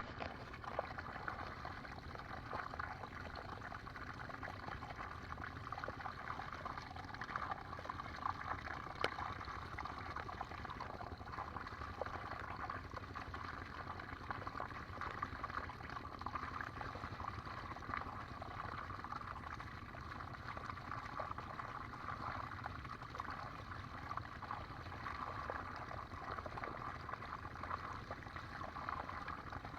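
Water flowing and trickling steadily, with scattered faint ticks and one sharper click about nine seconds in.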